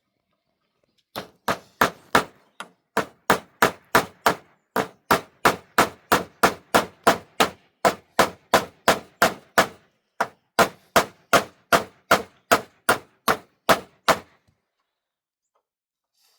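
Hammer blows with a metallic clang, struck steadily about three times a second, with a few brief pauses, then stopping about two seconds before the end.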